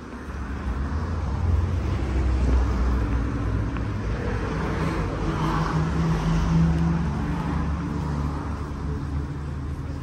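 A car engine running close by as it moves slowly past, a low rumble that swells over the first couple of seconds and fades in the last few.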